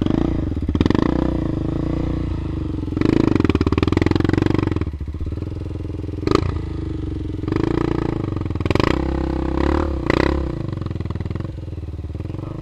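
Off-road motorcycle engine running and revving in repeated bursts as the bike is worked up a steep, muddy climb. A few sharp clacks cut through the engine sound.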